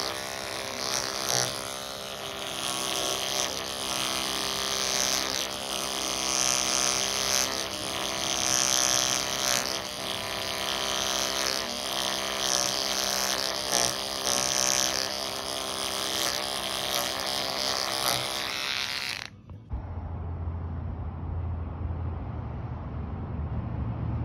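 Electric carving clippers buzzing as they shave the pile of a tufted rug, the pitch wavering slightly under load. About nineteen seconds in the buzz cuts off suddenly, giving way to a lower, duller steady hum.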